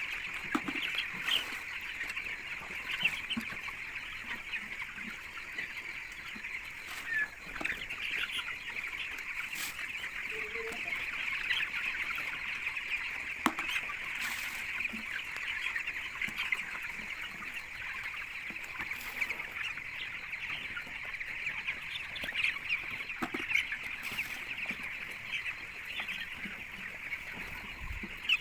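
A flock of young chickens peeping continuously, many overlapping high chirps, with a few scattered clicks and knocks.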